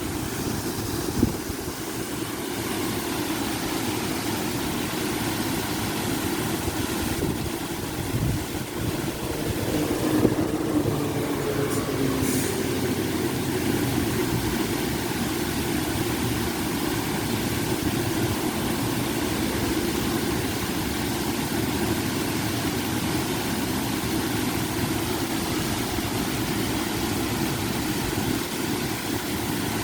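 Small river waterfall: water pouring and splashing in a steady rush, briefly a little louder about ten seconds in.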